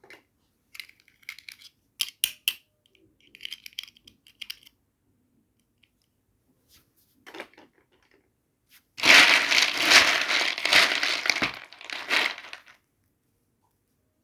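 Doll-set packaging being unboxed by hand: a few short crinkles and rustles, then about four seconds of loud crinkling and tearing in the second half.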